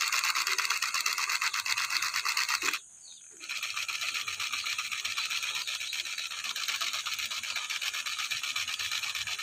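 Battery-powered toy pistol firing, its electric mechanism giving a fast, even, buzzing rattle. It runs in two long bursts with a short break just before three seconds in.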